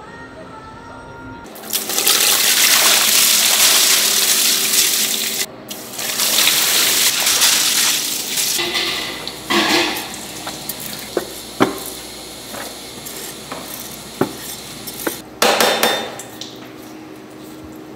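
Glutinous rice grains poured in a steady rush into a cloth-lined box for several seconds. This is followed by scattered clicks and scrapes of a metal scraper spreading the rice.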